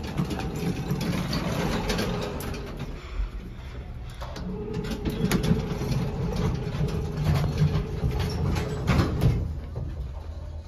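Traction elevator heard from inside the cab: a steady low hum and rumble with scattered clicks and knocks.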